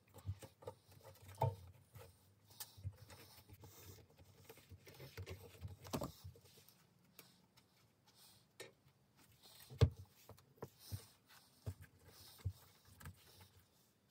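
Hands working on an old rubber bicycle saddle on a paper-towelled workbench: soft rubbing and rustling with scattered small knocks and taps as the saddle and its metal springs are lifted and set down, the loudest knock about ten seconds in.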